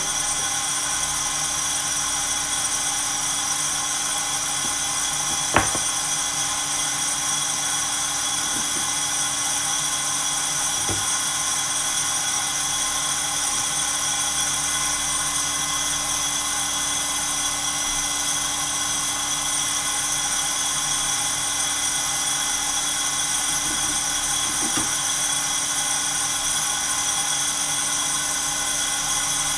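Santoker Q5 coffee roaster running mid-roast: a steady mechanical whir with a high hiss and several fixed tones, and a few sharp single clicks.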